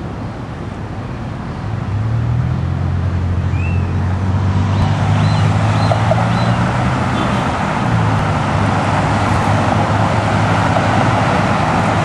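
Road traffic passing on a busy street: a vehicle engine's low hum comes in about two seconds in and lasts several seconds, under steady tyre and road noise that grows louder midway.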